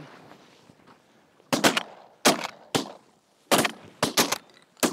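Several hunters' shotguns firing at passing ducks: a volley of about eight shots in quick succession, starting about a second and a half in, some in close pairs.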